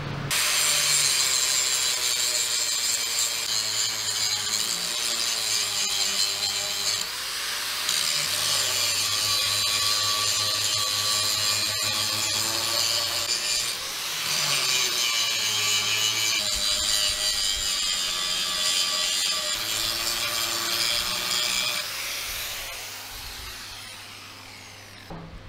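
Angle grinder grinding on the steel disc of a Panther tank road wheel, taking the paint off to find the original bolt holes. It runs steadily, its pitch wavering under load, with brief dips about 7 and 14 seconds in, and fades out near the end.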